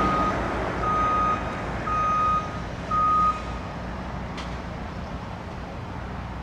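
Vehicle backup alarm beeping about once a second, four beeps that stop a little past three seconds in, over a steady low rumble of engines and traffic.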